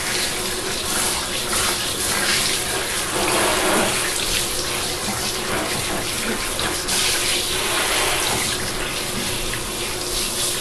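Water running steadily into a bathtub and splashing onto a wet pug and the tub floor while the dog is rinsed.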